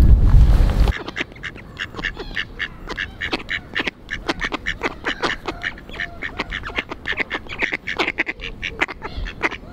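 About a second of wind buffeting the microphone, then mallard ducks quacking in a rapid run of short calls.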